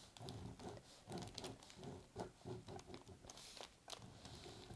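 Faint, irregular scratching of a pen tracing lines on tracing paper pressed over transfer paper, with light paper rustling.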